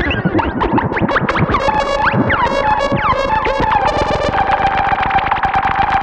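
Novation Bass Station 2 analogue synthesizer with its envelopes retriggering in a fast loop, giving a dense stream of rapid pulses and short swooping pitch glides over a held tone, thickened by tape-echo repeats.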